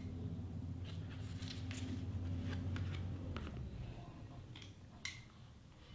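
Paper pieces being handled and pressed down on a cutting mat: soft rustles and a few light clicks and taps. A steady low hum sounds under them and fades out about three and a half seconds in.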